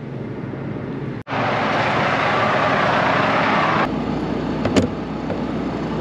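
Combine harvester running, a steady machine hum. After a brief dropout about a second in it becomes a louder rushing noise, which drops back to a lower hum near four seconds in, with a couple of sharp clicks.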